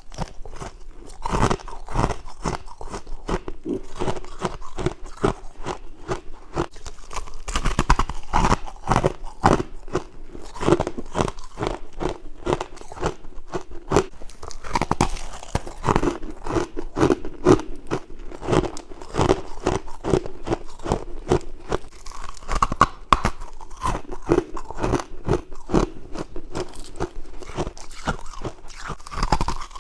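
White humidifier frost being bitten and chewed: dense, continuous crunching.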